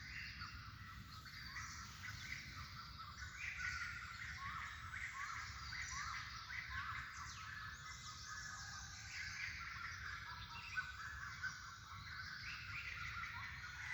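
A flock of small birds chirping together: many short, overlapping chirps in a dense, continuous chorus, over a steady low background rumble.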